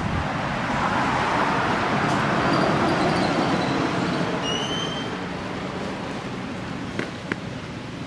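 Traffic noise from a passing vehicle: a rushing sound that swells over the first three seconds and then fades, with two sharp clicks near the end.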